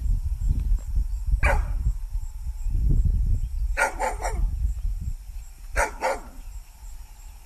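A dog barking in short bursts: one bark about a second and a half in, a quick run of three around the middle and two more near the end, over a steady low rumble.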